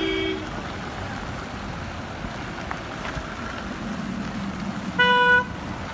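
Convoy of cars and SUVs driving past, with steady engine and tyre noise. A short car horn toot right at the start, and a louder horn blast of about half a second around five seconds in.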